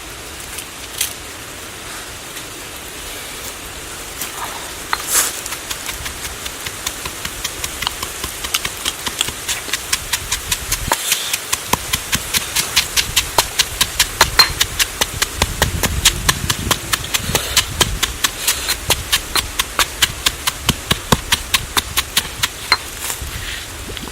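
A rapid, even series of sharp knocks, about four a second, that starts a few seconds in, grows a little louder and tails off near the end, over a steady hiss of rain.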